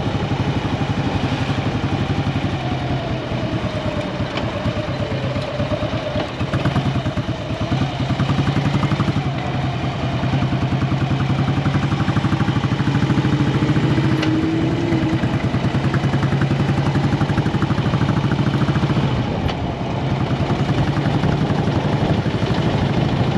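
Motorcycle engine running on the move at town speeds, its pitch sagging and picking up again as the throttle is eased and opened. The engine eases off briefly near the end, then pulls again.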